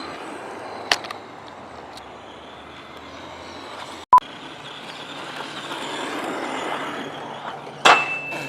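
Radio-controlled truck running over grass, a steady hiss of its motor and tyres that swells past the middle. A sharp knock comes about a second in and another near the end, and the sound drops out for an instant about halfway.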